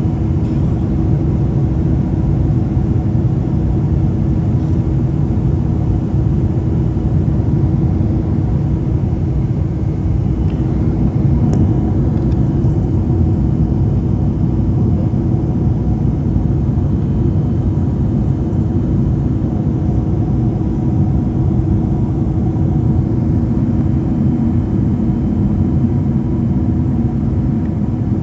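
Airliner cabin noise in flight: a steady, loud rumble of engines and rushing air with a constant low hum.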